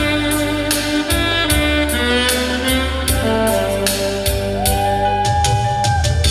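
Saxophone playing a slow ballad melody over an accompaniment with a steady drum beat and bass. A long held note starts a little past halfway and ends just before the close.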